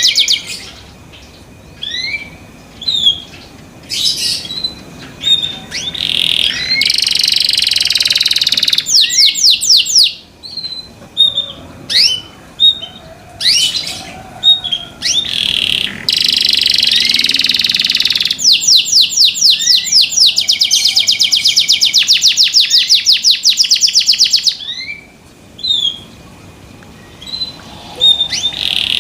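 Canary singing loudly: long, fast trills of rapidly repeated notes and sustained rolls, with short rising chirps and brief pauses in between.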